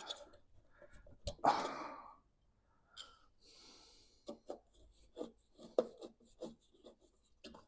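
Faint clicks, taps and a short scrape of hand tools and metal parts being handled while the front panels of a classic Mini are taken apart.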